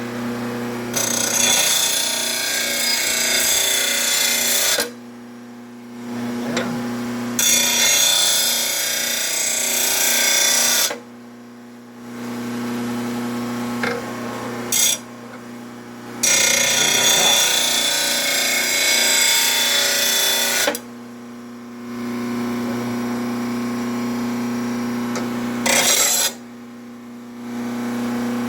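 RBG712 mower-blade sharpener's motor running with a steady hum while a steel mower blade is pressed against its grinding wheel in three long grinding passes of several seconds each, with a few brief touches between, sharpening the blade to a 30-degree edge.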